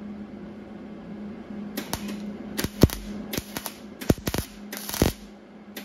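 MIG welder laying a series of short tack welds along the edge of a sheet-steel hood patch: about six brief crackling bursts of arc, starting about two seconds in, over a steady low hum.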